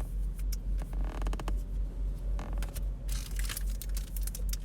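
Low steady hum of a car, pulsing evenly, under soft clicks and rustles of trading cards and pack wrappers being handled.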